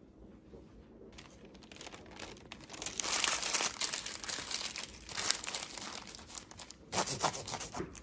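Paper crinkling and rustling as it is folded and pressed tightly around a sandwich. The sound is loudest from about three to five seconds in, with a further burst of crackles near the end.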